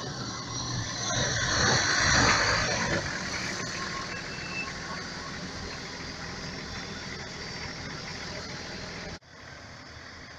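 Nissan four-wheel drive's engine and tyres on a gravel track as it drives up to and past close by, loudest about two seconds in, then running on steadily. About nine seconds in the sound cuts off abruptly to a quieter, steady background.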